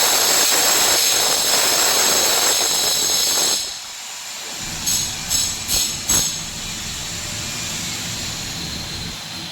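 Air from an air-washer HVAC duct blowing across the microphone: a loud rushing hiss with a thin high whine over it. It cuts off abruptly about three and a half seconds in. After that the system's quieter steady rush continues, with several short bumps close together around the middle.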